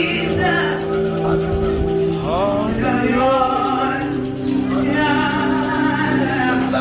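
Gospel music: singing voices over sustained keyboard chords with a shaker-like rattle.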